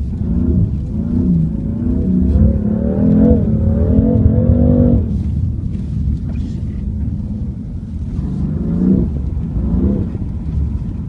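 Road and engine noise inside the cabin of a moving BMW xDrive car: a steady low rumble. A wavering pitched sound rides over it for the first half and again near the end.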